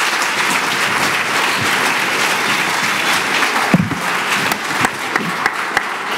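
Audience applauding: dense, steady clapping that eases off a little about halfway through.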